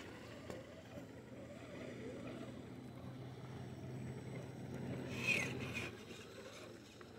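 Redcat Gen8 RC rock crawler's electric motor and drivetrain running on a 2S battery as it crawls over rocks, a steady low hum that stops about six seconds in. There is a short high-pitched sound about five seconds in.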